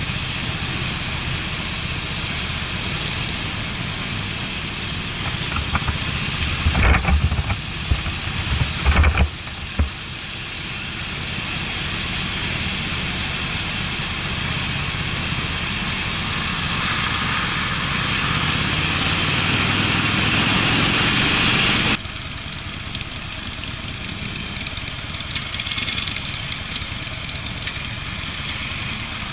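Harley-Davidson Street Bob's V-twin engine running on the move, under a steady rush of wind over the microphone. From about six to nine and a half seconds in, loud low rumbles come and go, and about 22 seconds in the sound drops suddenly to a lower level.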